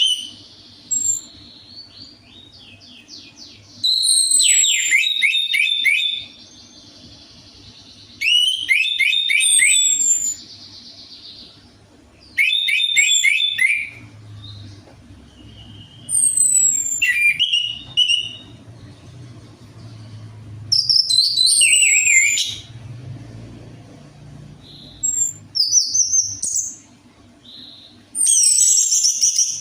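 Orange-headed thrush (anis merah) singing: about seven loud phrases of fast whistled trills and falling notes, each a second or two long, with pauses of a few seconds between them. It is a lure song (pancingan) used to prompt a reluctant captive anis merah to sing.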